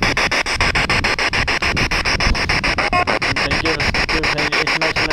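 Ghost box (spirit box) sweeping through radio stations: a steady hiss of static chopped into rapid, evenly spaced pulses, with a brief pitched snatch about three seconds in.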